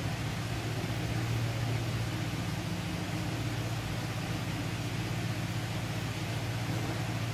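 A steady low hum under an even hiss, like a running motor or fan.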